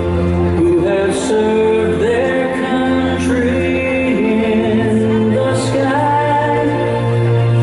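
Music with singing over a public-address system, held chords under a vocal melody.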